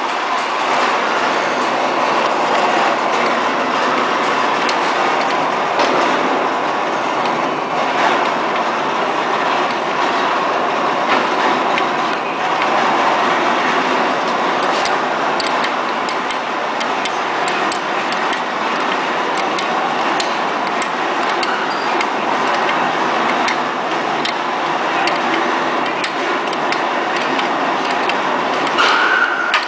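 Steady running-machinery noise fills the workshop, with small scattered metallic clicks of a wrench working nuts on a steel flange.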